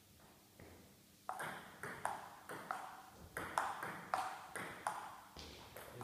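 Table tennis rally: the celluloid-type ball clicks back and forth, alternately bouncing on the table and struck by the players' paddles, several hits a second, with the echo of a large hall. The rally starts about a second in and stops shortly before the end.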